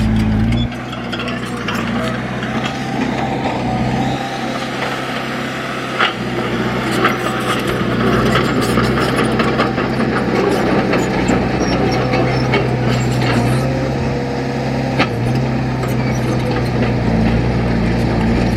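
Heavy diesel earthmoving machine's engine running under changing load, its pitch stepping up and down several times, with a couple of sharp metallic clanks.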